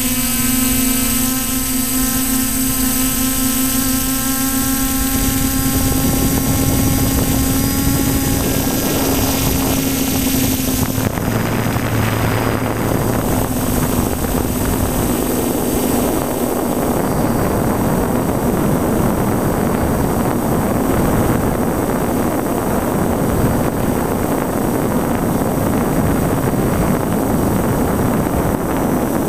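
A DJI Flamewheel multirotor's motors and propellers whine steadily in flight, picked up by the onboard GoPro. About eleven seconds in, a rushing wind noise on the microphone takes over and soon drowns the whine.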